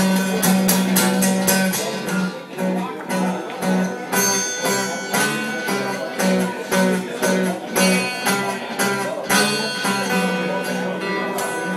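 Fingerpicked blues played on an amplified acoustic guitar, a 1963 Gibson J-50 through a Fishman Rare Earth pickup, in an instrumental passage over a steady pulsing bass note.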